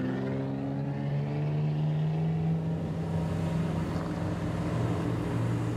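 Exhaust drone of modified, lowered cars rolling past at low revs: a steady, deep note whose pitch eases down a little in the first second and then holds.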